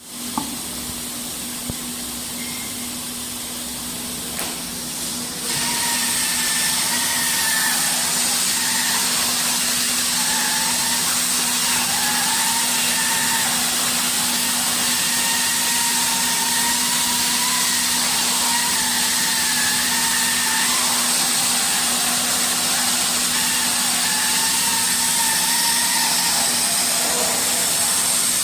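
Hot-air PVC welding machine running: a steady hum under a strong blower hiss that gets louder about five seconds in, with a faint wavering whistle over it.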